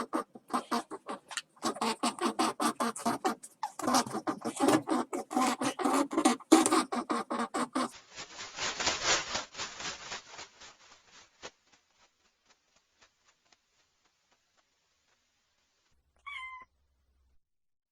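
A rapid series of rough, pulsing animal calls fades out about twelve seconds in. Near the end comes one short meow.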